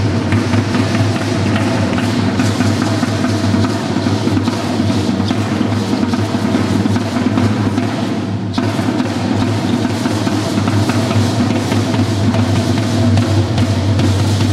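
Matachines dance music: a drum played continuously at a steady, loud level.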